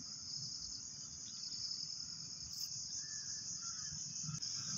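Steady, high-pitched chirring of insects in the background, with a faint low rumble under it.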